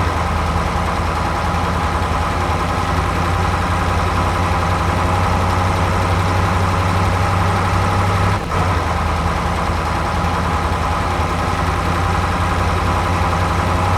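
Tractor engine idling steadily, with a brief dip about eight and a half seconds in.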